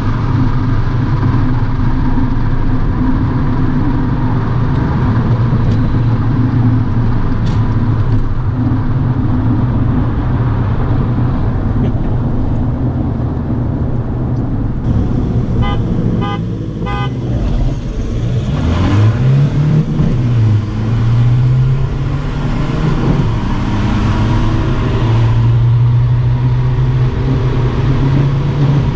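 Turbodiesel car engine heard from inside the cabin, pulling at speed with a steady drone. About 16 s in comes a short run of rapid beeps or toots, and the engine pitch then rises and falls through gear changes before settling into a louder steady drone near the end.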